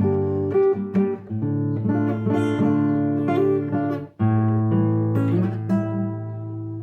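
Solo instrumental waltz: a melody over held chords, played unaccompanied, breaking off briefly about four seconds in before going on.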